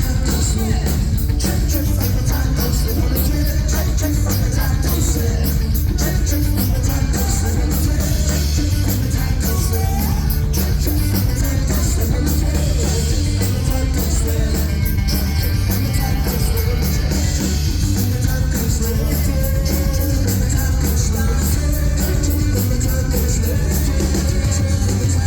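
Live rock band playing loud and without a break: heavy bass and drums with crashing cymbals, guitars and sung vocals, recorded from the crowd at a concert.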